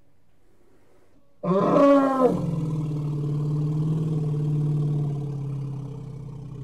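Elephant call: a short blast that swoops in pitch starts about a second and a half in, then runs into a long steady call held for about four seconds and slowly fading.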